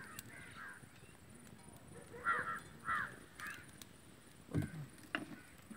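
Bird calls: several short caws, the loudest about two and three seconds in, with a brief low sound a little later.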